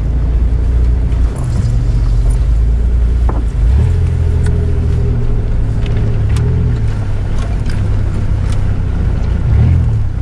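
A 4x4's engine runs under load, heard from inside the cab as it drives down a rutted, muddy forest track. Its pitch steps up about three and a half seconds in and wavers near the end as the throttle changes. Scattered sharp knocks and rattles come from the vehicle jolting over the ruts.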